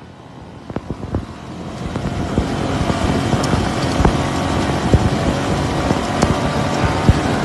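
Motor vehicles running at highway speed, with wind on the microphone: the engine and road noise build over the first two seconds, then hold steady, with sharp clicks scattered through.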